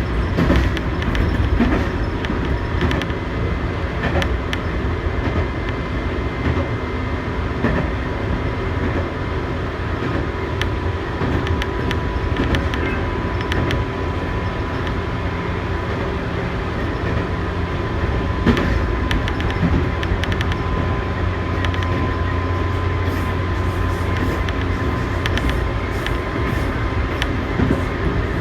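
Tobu 8000 series electric train running at speed: a steady rumble with a thin, even whine over it and scattered sharp clicks from the wheels on the track.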